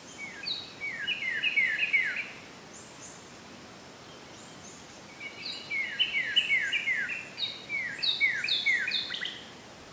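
A songbird singing two phrases of quick, repeated chirps that slide downward in pitch, with a pause of about three seconds between them, over a faint outdoor hiss.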